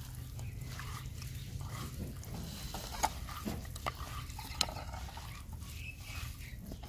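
Faint wet squishing and light clicks of hands mixing spice-coated fish pieces in a clay bowl, over a low steady hum.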